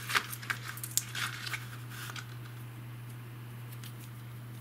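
Handling noise: a cardboard fishing-line packet and the line itself rustle and click as they are picked up and set down, most of it in the first second and a half. A steady low hum sits underneath.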